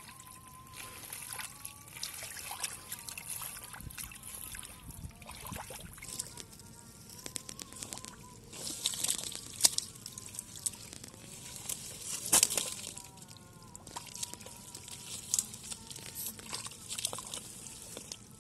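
Shallow muddy water sloshing and splashing as hands dig in the mud and feet wade through it, in irregular bursts with two louder splashes about nine and twelve seconds in.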